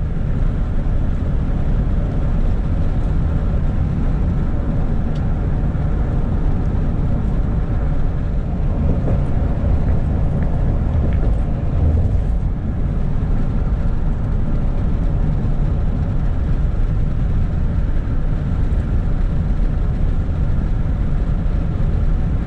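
Steady road and engine rumble of a vehicle driving at highway speed: a loud, deep, even noise with no changes.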